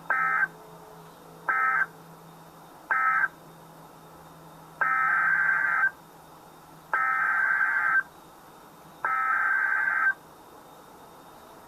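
NOAA Weather Radio SAME digital data bursts, a raspy buzzing tone. Three short bursts about a second and a half apart, the end-of-message code closing the tornado warning, then three longer bursts of about a second each, the header for the next alert.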